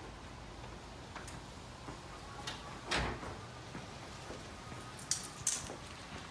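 A few scattered knocks and clicks: one heavier thump about three seconds in, and two sharp clicks near the end.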